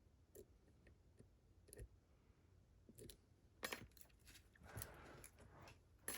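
Faint metal clicks and scraping of a lock pick and tension wrench working the pins inside a Vachette HDI lock cylinder: a few scattered ticks, one longer scrape about five seconds in, and a sharp click near the end.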